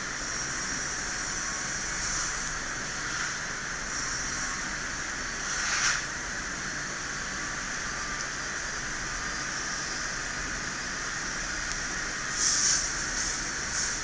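Steady hiss, with brief louder scratchy sounds about six seconds in and again near the end, as a sharp knife blade slowly scrapes the iPhone 6s Plus logic board.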